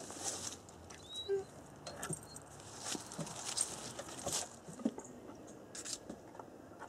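Irregular light tapping and clicking of a German Shepherd's paws and claws on a wooden porch deck as she walks about.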